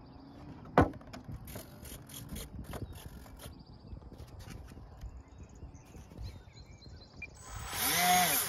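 Small Park 250 electric motor briefly spinning up the model airplane's propeller near the end, its whine rising then falling away. A sharp click about a second in.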